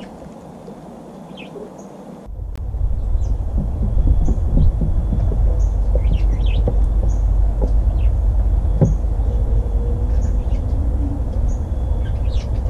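A steady low rumble that jumps up sharply about two seconds in and stays loud, with birds chirping now and then and short clicks and crunches of a fox squirrel gnawing an acorn.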